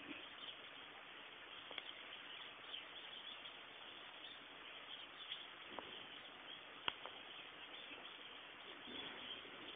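A cat chewing a fish: a few faint, sharp clicks, the loudest about seven seconds in, over a steady hiss of outdoor background noise.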